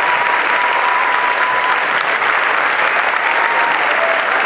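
Audience applauding steadily, with a faint held tone that stops about a second and a half in.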